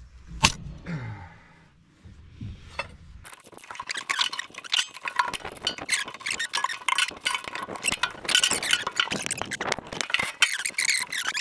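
A single sharp metallic crack about half a second in as a swing-box bolt is broken loose with a long bar on a socket. From about three seconds on, a socket ratchet clicks rapidly and continuously as the loosened bolt is wound out.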